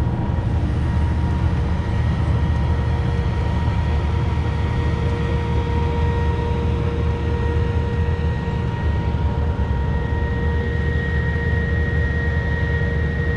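Steady low rumble of a car running, with a few faint steady high tones above it.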